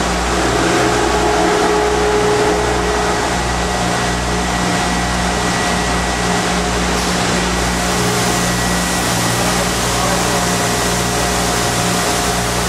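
Spinner-hanger shot blast machine running: a steady, loud mechanical rush over a low hum. The high hiss grows a little about seven seconds in.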